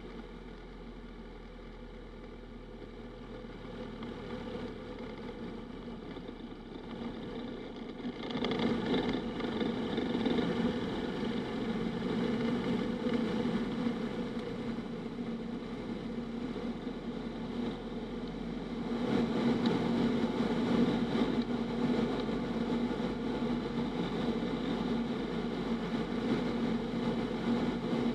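Piper Super Cub's engine and propeller droning steadily inside the cockpit, with rushing air over it, while the plane descends in a steep spiral. The sound steps up in loudness about eight seconds in and again near twenty seconds.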